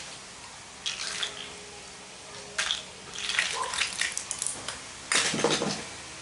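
Small plastic toys clattering and rustling as hands rummage through a pile of them, in several short bursts, the loudest near the end.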